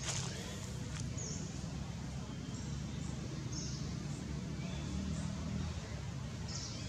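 Short, high chirping calls about once a second over a steady low outdoor rumble.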